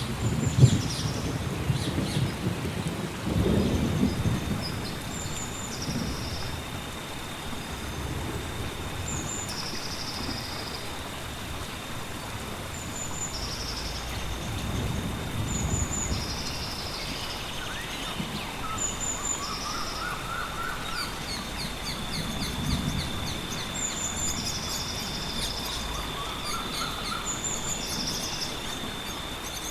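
Rainforest ambience: steady rain with low rolls of thunder near the start and again around the middle, birds repeating short high calls every second or two, and a thin steady high tone.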